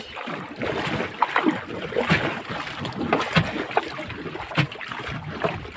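Sea water slapping and splashing against a wooden outrigger boat's hull and bamboo outrigger, in irregular sloshes, with wind on the microphone.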